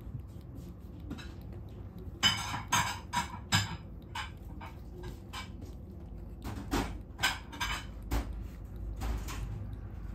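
Cat lapping at a raised ceramic water bowl. Its tongue and teeth knock on the ceramic in two runs of sharp clicks, each a few in quick succession, with softer lapping ticks between them.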